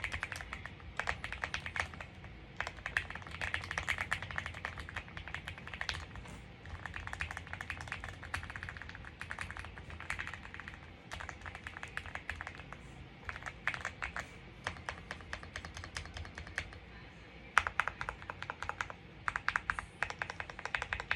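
Typing on a custom mechanical keyboard with Gateron switches and PBT keycaps: quick runs of key clacks in bursts with short pauses, and one louder clack late on.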